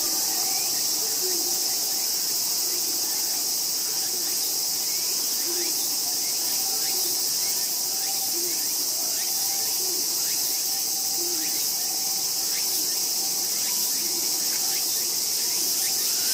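Steady, high insect chorus of summer insects, an unbroken shrill hiss that does not change, with faint short chirps underneath.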